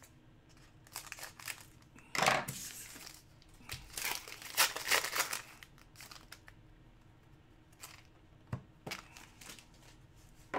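Foil wrapper of a trading-card pack crinkling and tearing as it is opened and the cards are pulled out, in several rustling bursts during the first half, followed by a few light taps.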